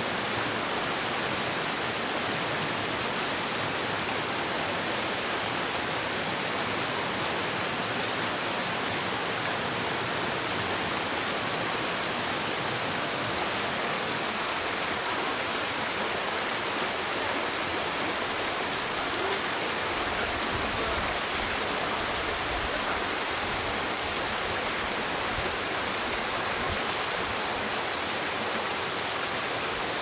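A mountain stream running over rocks: a steady, even rush of water. A deeper low rumble joins about twenty seconds in.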